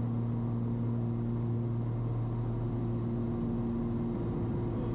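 Twin piston engines of a Cessna 340 droning steadily, heard in the cockpit on final approach with the landing gear down. A low, even hum is joined by a higher steady tone that drops out about four seconds in.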